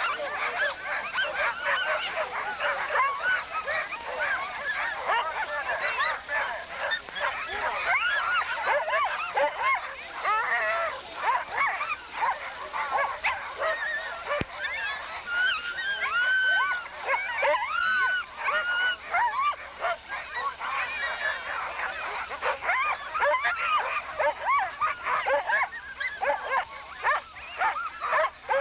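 Many sled dogs barking and yelping at once, a dense, continuous chorus of overlapping calls.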